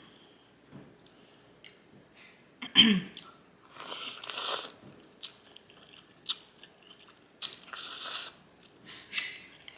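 Close-miked eating sounds: chewing, one short loud mouth sound about three seconds in, then several hissing slurps a few seconds apart.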